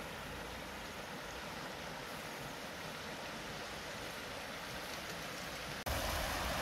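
Shallow river running over stones, a steady rushing. Near the end the sound jumps louder, with wind rumbling on the microphone.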